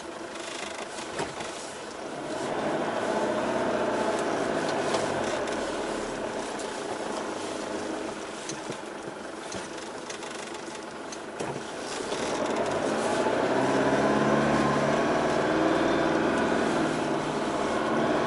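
A 4x4's engine heard from inside the cab while it drives over soft sand dunes. The engine note swells and its pitch rises and falls, with a louder stretch of revving about two seconds in and another from about twelve seconds in.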